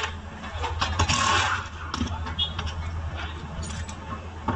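Car engine idling steadily, with scattered short clicks and knocks.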